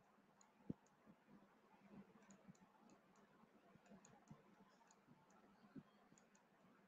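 Near silence: faint room tone with a few soft clicks, the clearest just under a second in, from a pointing device used to hand-write on screen.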